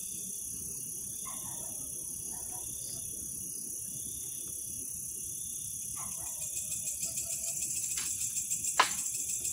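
Crickets and other night insects chirring steadily in a high, pulsing trill. Near the end come a faint click and then one sharp knock, which the men take right afterwards for something thrown at them.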